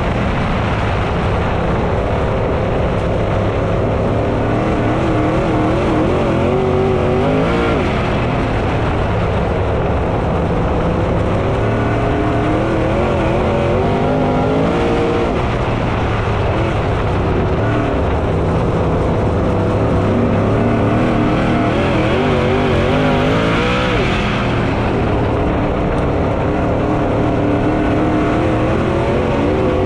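V8 dirt late model race engines running hard on a dirt oval. The engine note climbs down each straight and drops off sharply into the corners, about every eight seconds.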